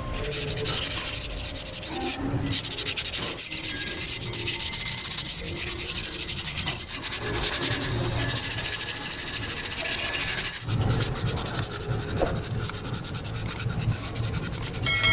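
Toyota Fortuner rear brake disc being sanded by hand with an abrasive sheet: quick back-and-forth scratchy rubbing strokes across the braking face, cleaning off dirt and rust, with a brief pause about two seconds in.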